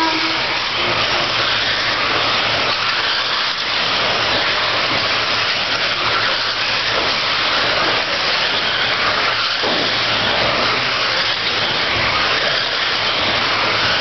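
A pack of electric RC dirt oval cars with 13.5-turn brushless motors racing on a clay track: a steady whine of motors and tyres on the dirt. It is the opening lap, just after the start tone.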